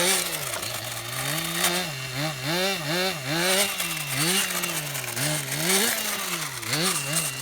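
Small engine of a Blizzard radio-controlled model, buzzing and revving up and down about twice a second.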